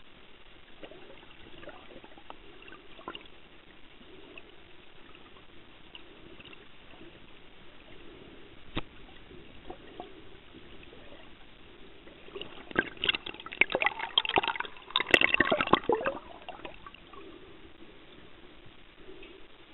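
Underwater sound: a faint steady hiss with scattered clicks, then about thirteen seconds in a loud burst of rapid crackling and bubbling that lasts a few seconds.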